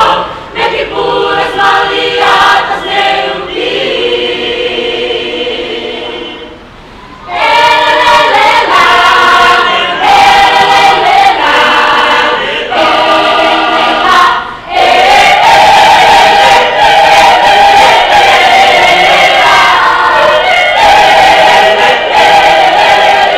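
Mixed choir of men and women singing unaccompanied in sustained chords. A soft passage fades away about six seconds in, the full choir comes back in loud about seven seconds in, and from about fifteen seconds in they hold one long chord.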